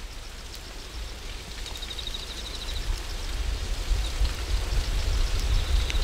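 Outdoor ambience: a steady low rumble that grows louder, with a short, rapid high-pitched trill about two seconds in.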